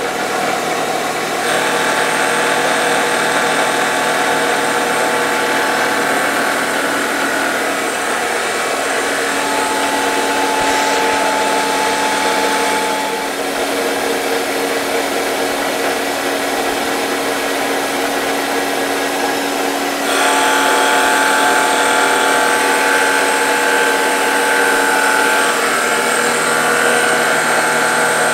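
CNC-converted wood lathe running with its cutter taking a pass on a spinning wooden spindle blank, cutting wood. The machine noise is steady with a few changes in the cut, and it gets louder about two-thirds of the way through.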